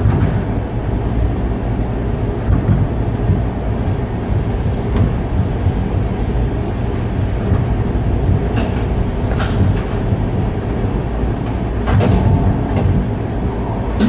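Gateway Arch tram capsule travelling up its track inside the arch leg: a steady low rumble, with a few sharp clicks and clanks in the second half.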